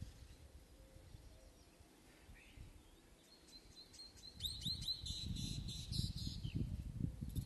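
Birds chirping in a quick series of high twittering notes, some short and falling in pitch, over a quiet outdoor background. A low, uneven rumble comes in about four seconds in.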